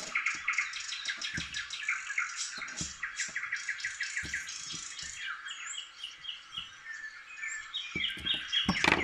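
Small birds chirping and twittering continuously in quick repeated high notes and short trills, with a few soft knocks now and then.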